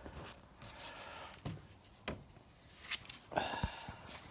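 Faint handling noises: a few scattered clicks, a brief scrape and a light knock.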